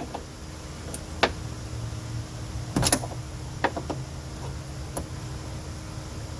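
Scattered clicks and knocks from a hand tool being fitted and worked on the mounting bolt of a hatchback gas strut, with a short clatter about three seconds in.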